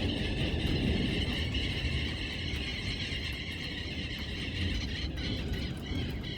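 Thunder rolling in a long low rumble that slowly fades, with a steady high hiss over it that thins out near the end.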